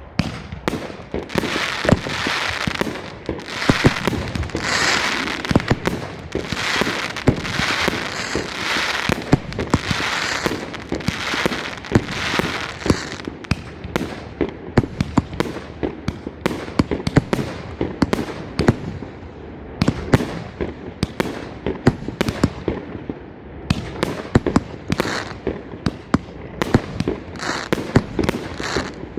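The K 43-25 "Salute in Zanzibar" consumer fireworks cake firing in a long sequence. It launches a sharp shot about every second, and the shells break into crackling, hissing bursts that overlap one another.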